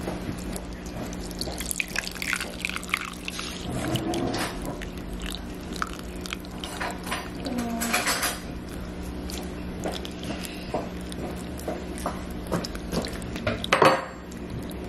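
Milk being poured from a pitcher into a ceramic mug over a chocolate hot cocoa bomb, with liquid splashing and dripping and small clicks, over a steady low hum. A brief louder burst comes near the end.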